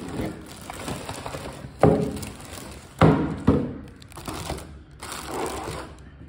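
Cardboard packaging being handled: the inner tray of a headphone box is slid out of its outer sleeve with rubbing and scraping. There are three sharp knocks of cardboard against a wooden table, one about two seconds in and two about three seconds in.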